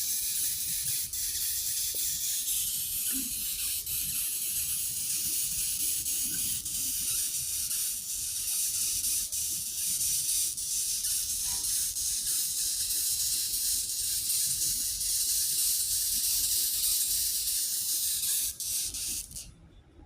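A beetle making a continuous high-pitched hissing buzz that holds steady for nearly twenty seconds and then cuts off suddenly near the end.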